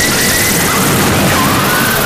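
Japanese harsh noise music: a loud, dense wall of static and distortion at an even level, with thin whistling feedback-like tones wavering through it, one sliding upward in pitch about two-thirds of the way through.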